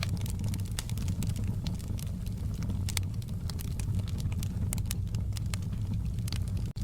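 Wood fire in a fireplace crackling: frequent irregular sharp pops and snaps over a steady low rumble of the flames, with a split-second dropout near the end.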